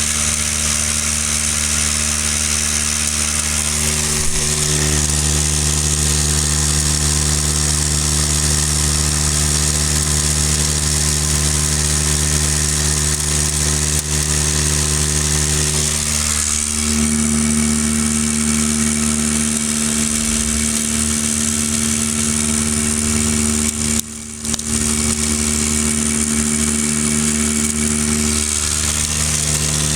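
Electric non-air drywasher running with a steady mechanical hum as dirt feeds through it. A stronger hum tone comes in about halfway through and fades out near the end, with a brief dip about three quarters of the way in.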